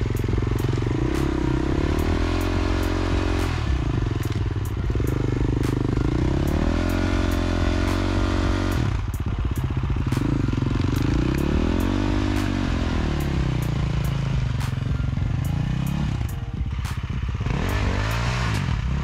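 Dirt bike engine revving up and down over and over, its pitch climbing and falling in repeated surges, as the rear tyre spins for grip on slick wet clay.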